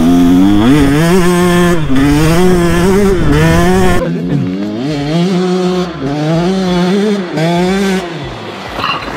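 KTM 125 SX two-stroke dirt bike engine revving, its pitch climbing and dropping over and over, a little quieter after about four seconds.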